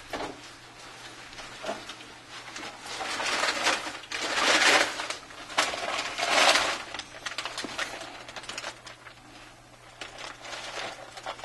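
Handling noise from an iPhone being pressed, rubbed and moved about by hand on a work mat: scuffing in a few louder bursts around the middle, with light clicks.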